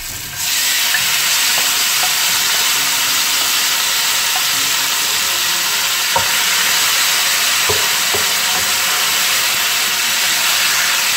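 Pieces of boiled pork dropped into hot oil with fried mustard seeds and shallots in a frying pan, setting off loud sizzling about half a second in that then holds steady while the meat is stirred. A few light taps of the wooden spatula.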